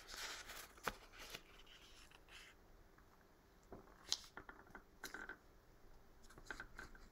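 Sheet of computer paper being folded and creased by hand: faint, scattered rustles with a couple of brief sharper ticks, about a second in and about four seconds in.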